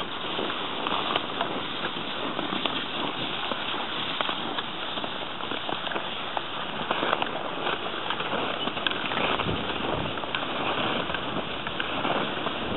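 Skis and pulk sleds sliding over a packed snow track: a steady crackling noise with frequent small clicks and crunches.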